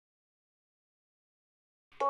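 Silence, with a chiming music track starting just at the very end.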